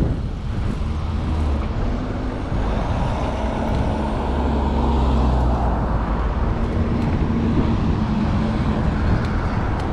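A motor vehicle's engine running with a steady low rumble over a constant noisy hiss.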